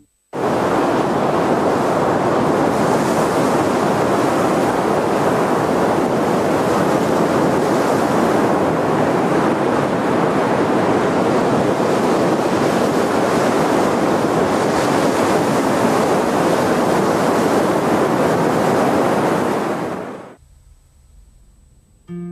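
Sea waves rushing in a steady wash of surf, starting suddenly and fading out near the end.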